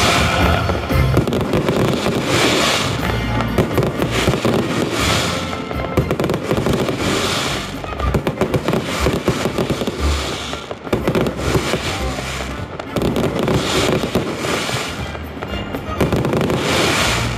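Fireworks display going off in rapid succession: a dense run of bangs and crackling, with a swell of hissing every couple of seconds, and music playing along.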